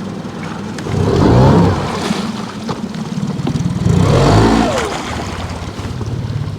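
Small kicker outboard motor running, revved up and back down twice, once about a second in and again about four seconds in. It runs smoothly on freshly cleaned spark plugs.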